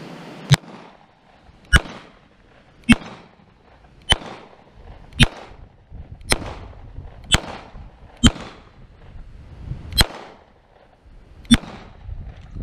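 CZ Shadow 2 9mm pistol firing ten single shots at a slow, steady pace of about one a second. Each report is sharp and followed by a short ring, with the spacing a little wider for the last two shots.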